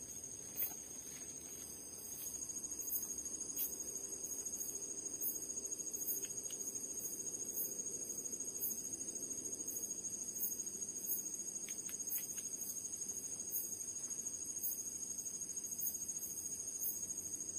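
Night insect chorus, mainly crickets: a steady high shrill with a second, higher call pulsing about once every three-quarters of a second.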